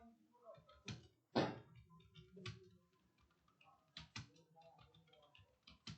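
Computer keyboard keys being struck at an irregular pace during a typing test, with one louder thump about a second and a half in.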